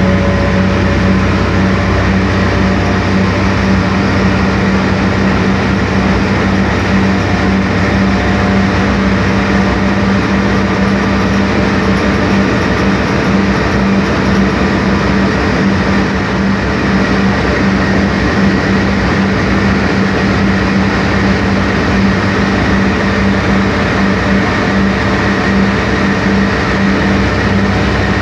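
Inside a 1993 Sanos S215 city bus cruising at about 80 km/h. Its MAN D2866UH 240 hp diesel engine and ZF Ecomat automatic gearbox give a steady drone of unchanging pitch under an even hiss of road noise.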